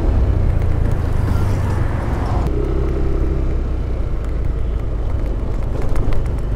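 Yamaha Aerox 155 scooter riding along at road speed: its single-cylinder engine runs under a steady, heavy rumble of wind buffeting the helmet-mounted microphone.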